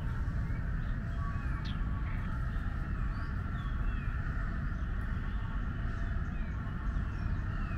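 Outdoor ambience: small birds giving short chirps here and there over a steady low rumble and a constant background hiss.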